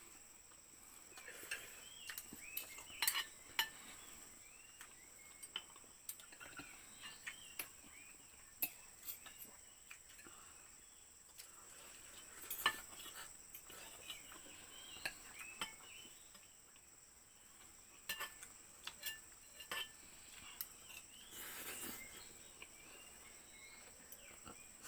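Cutlery clinking and scraping on plates while people eat, in scattered sharp clinks. Birds chirp now and then behind it, over a steady high-pitched insect drone.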